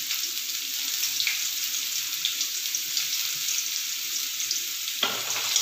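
Chopped onion sizzling steadily in hot oil in a kadai as it begins to sauté. About five seconds in, a louder scraping noise starts as the metal slotted spoon begins stirring in the pan.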